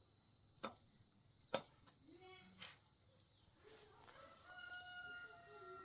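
A rooster crowing faintly, one long held call in the second half. Before it come a few sharp clicks or knocks, the loudest about a second and a half in.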